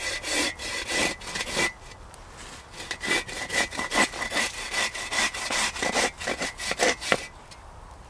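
Hand saw sawing through a raw pumpkin in quick back-and-forth strokes, about two to three a second. It pauses about two seconds in, resumes a second later for a longer run, and stops near the end.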